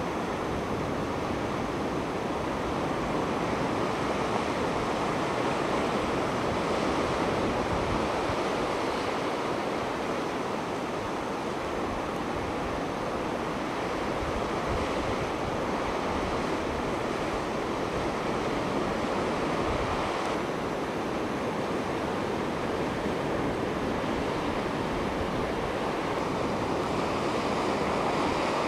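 Steady rushing of wind and sea surf, an even noise with no let-up.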